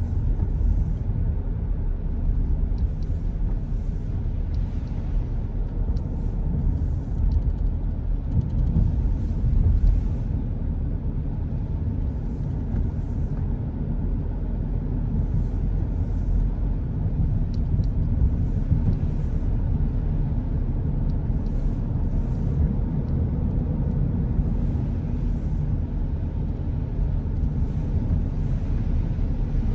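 A car driving along a road, heard from inside: a steady low rumble of road and engine noise, with soft hissing swishes coming and going over it.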